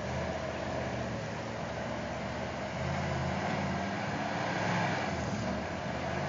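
Range Rover engine pulling under load while the 4x4 crawls up over rocks, its revs rising about halfway through and again near the end.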